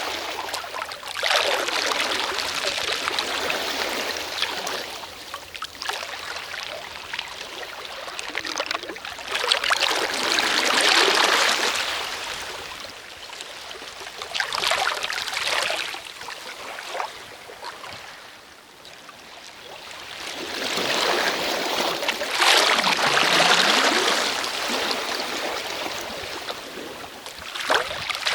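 Sea waves washing onto a shore and drawing back, the sound of water swelling and fading in long surges about every five seconds.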